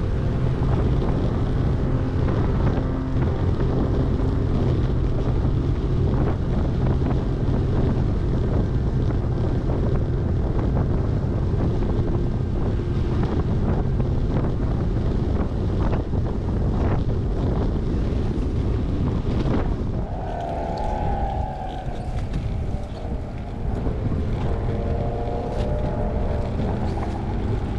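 Steady wind rush on the microphone of a camera riding along on a road bicycle, with a few wavering pitched tones in the last several seconds.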